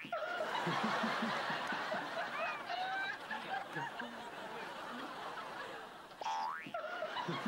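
Studio audience laughing, many voices together, louder in the first few seconds and easing off. About six seconds in, a short rising cartoon 'boing'-type sound effect.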